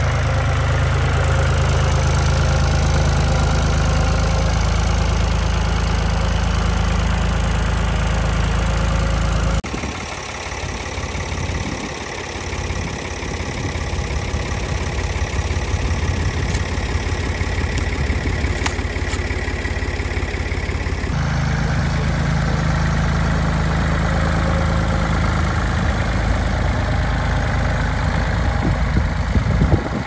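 Ford 4610 tractor engine running steadily. About ten seconds in the sound changes abruptly to a rougher, less even engine noise, and about two-thirds of the way through it turns steady again.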